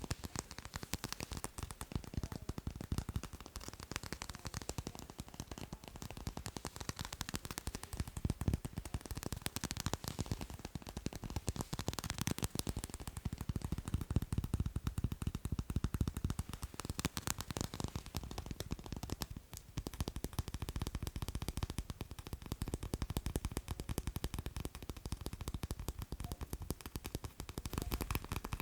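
Fast tapping on macarons: a dense, rapid stream of light taps on the crisp shells, with a brief pause about two-thirds of the way through.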